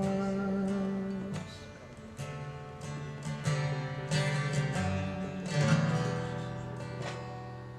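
Acoustic guitar playing the closing chords of a song: a held chord rings, then a handful of single strums follow at intervals and fade away.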